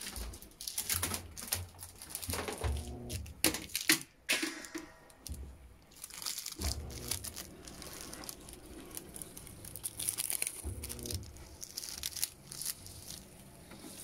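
Panasonic top-load washing machine starting to fill: water rushing in and splashing onto a load of jeans, with irregular crackling and a few brief low hums. The sound starts abruptly.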